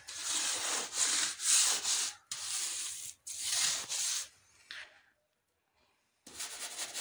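Steel mason's trowel scraping and smoothing a freshly laid wet cement floor screed in short back-and-forth strokes, about two a second. The sound cuts out for about a second past the middle, then the strokes come quicker near the end.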